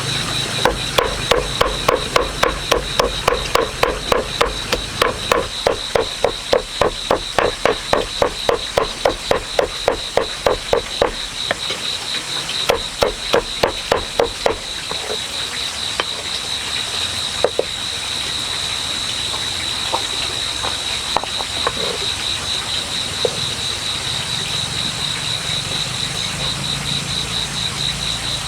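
Steady high-pitched insect trilling, with a fast run of repeated pulses, about four or five a second, through roughly the first half.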